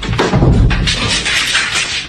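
Music with a few knocks, and a stretch of hiss-like noise through the middle.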